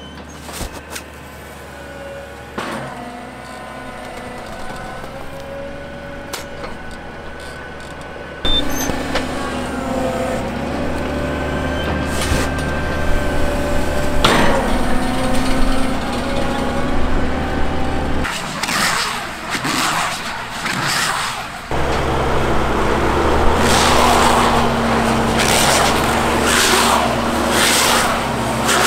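Fendt 712 tractor's engine running under load while a Göweil square-bale wrapper picks up and wraps square hay bales, with a whining tone that wavers in pitch over the engine. The sound jumps louder about eight seconds in, drops briefly around eighteen seconds, and is loud again from about twenty-two seconds on.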